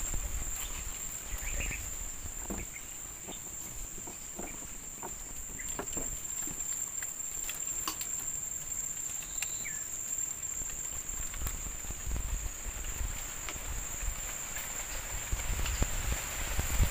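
Steady high-pitched drone of insects, with scattered small clicks and taps, and low knocks growing near the end.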